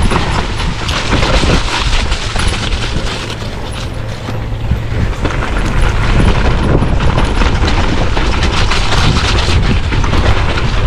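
Mountain bike descending a dirt trail: tyres rolling and the bike rattling over rough ground in many quick knocks and clatters, with wind rumbling on the microphone.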